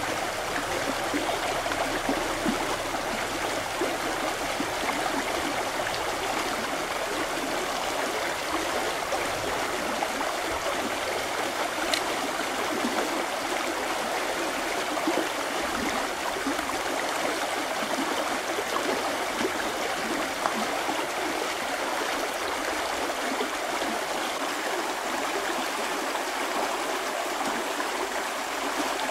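Shallow river rushing steadily over rocks and small rapids.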